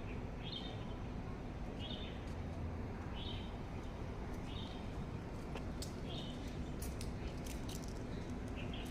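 A bird giving a short, high chirp over and over, about once every second or so, over a steady low background rumble. A few sharp clicks come in the second half.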